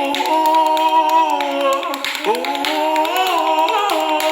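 Voices singing two long held notes, each sliding up into its pitch and the second wavering before it ends, over steady hand clapping.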